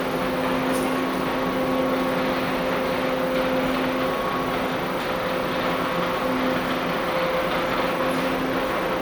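Steady rushing background noise with a faint, even hum underneath. It has no distinct events.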